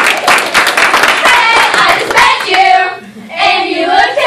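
Quick hand clapping that gives way, about two seconds in, to a group of young voices singing together.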